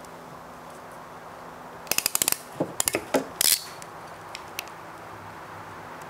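Hand crimping tool clicking as it crimps a ring terminal onto the negative battery wire, in quick runs of sharp clicks about two seconds in and a couple of lone clicks a second later.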